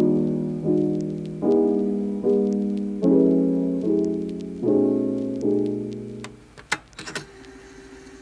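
Background piano music: soft chords struck about every 0.8 seconds, each dying away, until the music fades out near the end. Two sharp clicks come as it fades.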